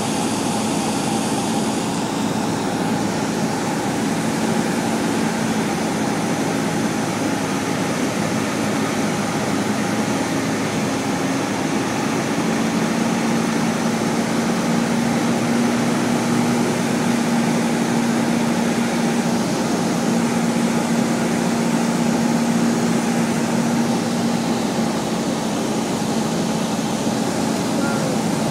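Small propeller airplane's engine and propeller droning steadily inside the cabin on final approach, with a constant rush of wind noise. The engine hum grows a little stronger through the middle stretch.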